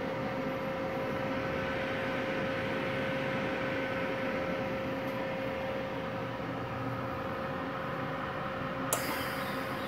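Multipro MIG-MAG 200G-SP inverter welder switched on and idling, its cooling fan running with a steady whir and a constant whine. About nine seconds in there is a sharp click, after which a higher hiss joins the sound.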